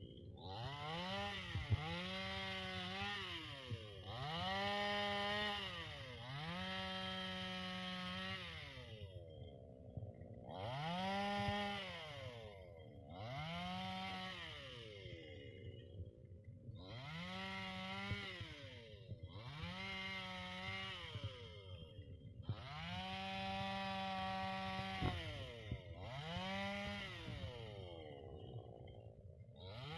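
Two-stroke chainsaw engine revved again and again: each time the pitch climbs quickly to full speed, holds for a second or two, then drops back, about a dozen times with short near-quiet gaps between.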